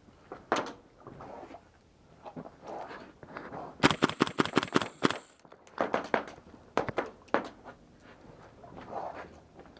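Airsoft rifle firing: a rapid burst of about ten shots about four seconds in, then shorter bursts around six and seven seconds.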